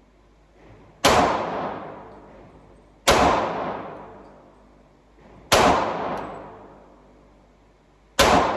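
Four single pistol shots from a Glock 22 in .40 S&W, fired one at a time about two to three seconds apart, each a sharp crack followed by a long echoing tail from the indoor range.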